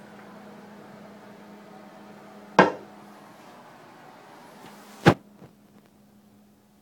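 Two sharp clacks about two and a half seconds apart from a plastic toilet lid being raised and knocking against the tank. A steady low hum runs underneath and fades out after the second clack.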